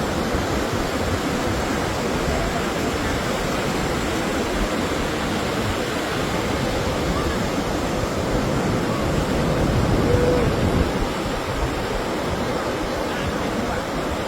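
Sea surf breaking, a steady rushing noise that swells a little about ten seconds in.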